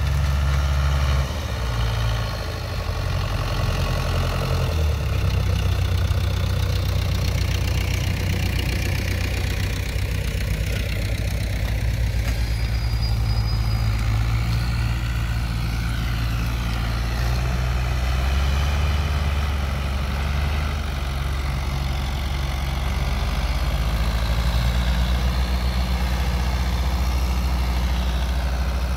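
Fiat 640 tractors' four-cylinder diesel engines running steadily under load while pulling disc harrows through tilled soil.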